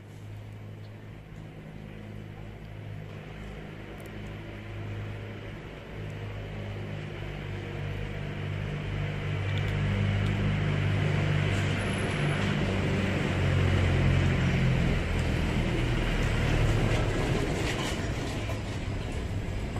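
A motor vehicle's engine running with a low hum, growing louder over the first ten seconds or so and then staying loud.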